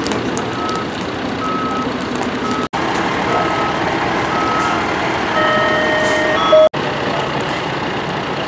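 A vehicle's back-up alarm beeping steadily at about one and a half beeps a second over a truck engine's running. Near the end a louder, lower steady tone sounds for about a second, then the beeping cuts off abruptly, leaving the engine running steadily.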